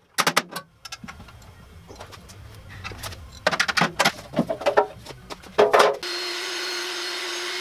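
Sharp knocks and clicks from handling a band saw's lower wheel housing. About six seconds in, a shop vacuum switches on and runs steadily with a low hum.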